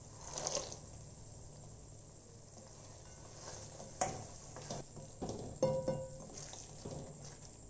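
Cashews tipped from a steel bowl into thick curry gravy in a steel kadai, then a wooden spatula stirring and scraping through the gravy with scattered knocks. A little over five seconds in comes a sharp metallic knock that rings briefly.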